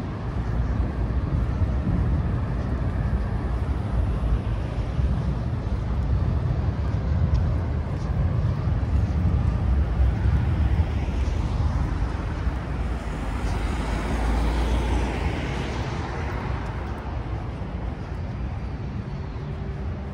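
Steady city traffic rumble from a riverside road, with one vehicle passing close by, swelling and fading around the middle.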